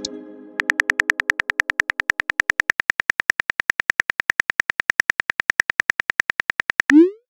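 Smartphone keyboard clicks tapping at a steady rate of about eight a second as a message is typed, ending near the end in a short rising swoosh, the sound of a text message being sent. A fading chime tails off at the very start.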